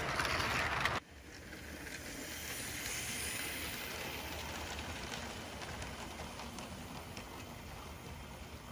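Motorized LEGO train models rolling along plastic LEGO track, a steady clatter of wheels with motor hum. A louder run of it cuts off suddenly about a second in, then the sound builds to a peak about three seconds in and slowly fades as the train passes.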